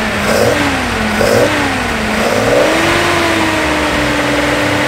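Nissan Skyline 2000GT (Hakosuka) straight-six on triple carburettors, revved by hand at the throttle linkage. The revs rise and fall in about three short blips, with intake noise at each, then go up a little and hold steady.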